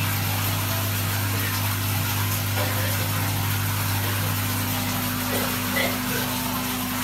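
Electric pump humming steadily, with water splashing and bubbling in a shallow tiled fish tank.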